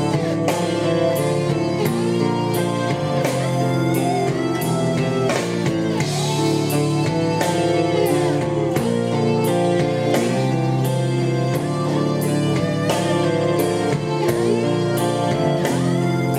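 Guitar-led music with a steady drum beat, about two beats a second, played back through a pair of Technics SB-F1 mini monitor speakers, with little deep bass.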